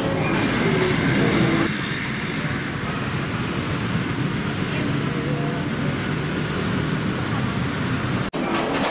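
Busy city street ambience: steady traffic noise with faint, indistinct voices, easing a little about two seconds in.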